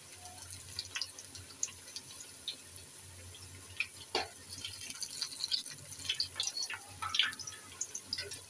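Battered eggplant slices deep-frying in hot oil in an aluminium wok: a steady low sizzle dotted with frequent small crackles and pops, a few of them louder.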